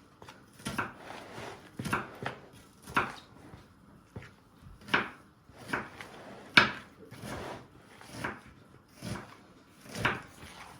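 Vareniki dough being kneaded by hand: a short dull knock on the work surface about once a second as the dough is pushed and turned.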